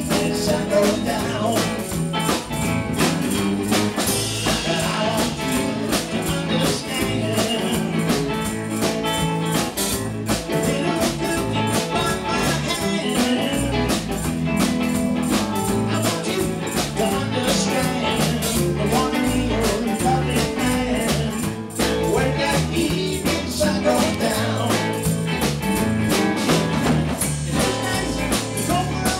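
Live amplified blues-rock band playing a song: electric guitars, electric bass and a drum kit.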